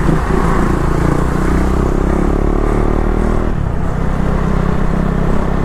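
KTM Duke 390's single-cylinder engine pulling under throttle as the bike gathers speed, with one upshift about three and a half seconds in, over wind noise.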